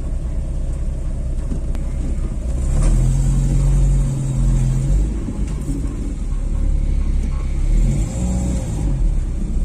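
Low engine and road rumble of a Volkswagen Saveiro pickup heard from inside the cab, with a steady low hum that swells for about two seconds near the middle.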